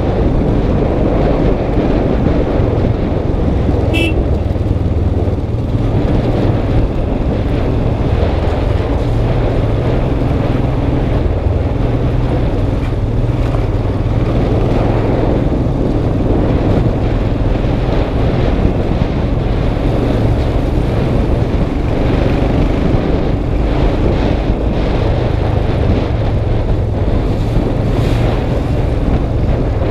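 Motorcycle engine running steadily on a rough gravel track, with wind noise on the helmet-mounted microphone.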